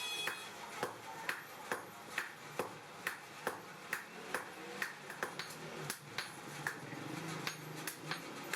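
Hammer blows on hot steel at the anvil, forging a blacksmith's tong: sharp strikes at a steady pace of about two a second.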